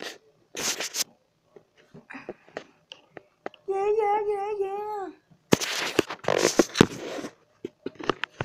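A child's voice: a long, wavering "yeah" in the middle, between loud noisy bursts close to the microphone, the loudest just after it.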